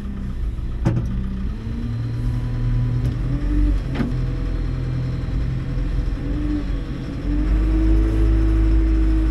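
Telehandler's diesel engine running and revving as the machine carries and lifts a log on its forks. The engine pitch steps up about seven seconds in and holds there, with two sharp knocks, about one and four seconds in.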